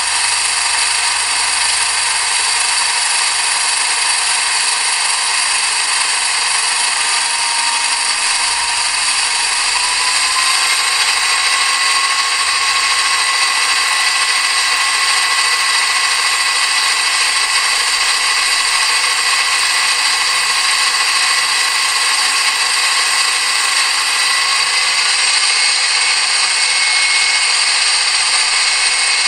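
Recorded EMD 16-645E3B turbocharged V16 diesel prime mover of a GP40-2 locomotive running steadily, played back through a LokSound 5 model-train sound decoder's small speaker, so it sounds thin with little bass. A steady whine in it rises slightly in pitch about ten seconds in and again near the end.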